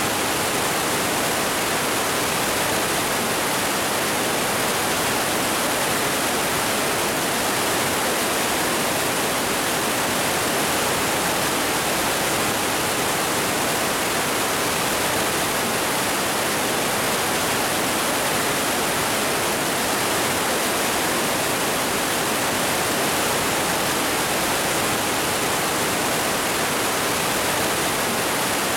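The Partnach river in flood after heavy rain, whitewater rushing through a narrow rock gorge: a loud, steady, unbroken rush of water.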